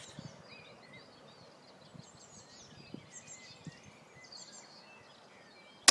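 Quiet outdoor background with faint bird chirps, then one sharp, loud crack near the end: a single shot from a Novritsch SSG24 spring-powered bolt-action airsoft sniper rifle.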